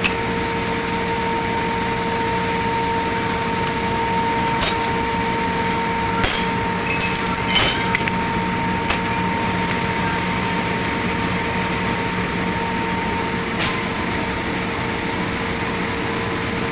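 A steady mechanical hum with a constant tone, with a few short sharp metallic clicks and taps scattered through it.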